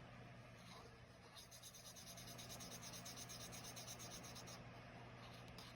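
Felt-tip marker colouring in a square on a paper tracker: quick, faint back-and-forth scribbling strokes that run for about three seconds in the middle.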